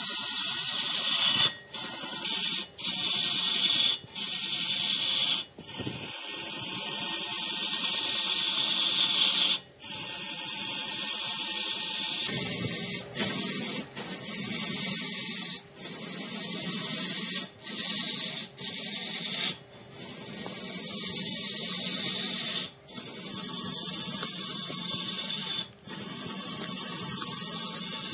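Large wood lathe turning red wood, a turning tool cutting into the spinning wood with a steady hissing scrape. The sound is broken by many short, sudden gaps every one to three seconds.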